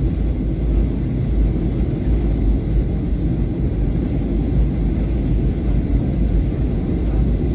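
Cabin noise of a Boeing 737-800 in flight: a steady low rumble of its CFM56-7B engines and the airflow, heard from inside the cabin.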